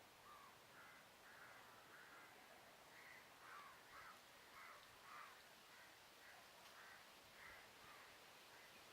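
Faint birds calling, a run of about a dozen short repeated calls close together, over a low background hiss.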